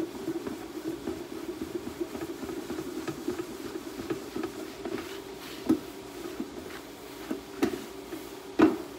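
Paper towel rubbing and wiping over the powder-coated steel lid of an ammo can, over a steady low hum. There are a few sharp knocks in the second half, the loudest near the end.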